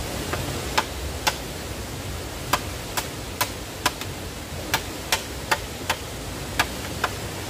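Machete blade striking a green bamboo pole in a series of sharp knocks, mostly in short runs of about two a second, over the steady rush of a stream.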